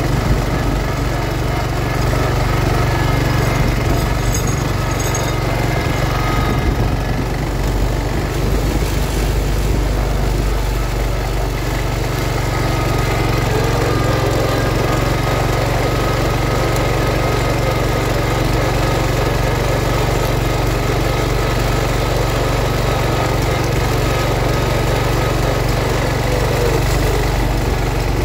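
A 1971 John Deere 140 H3 garden tractor's engine running steadily at an even throttle as the tractor drives, towing a Brinly sleeve-hitch plow.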